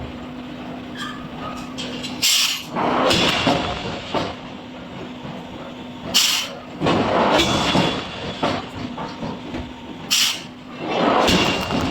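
Forging-shop machinery giving a sharp hiss about every four seconds, three times, each hiss followed by a longer noisy rush, over a steady low hum.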